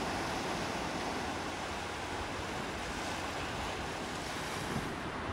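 Steady, even rush of sea waves and surf.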